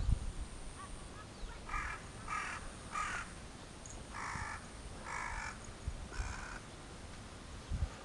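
A crow cawing: six harsh caws in two sets of three, the later three a little longer and more spaced.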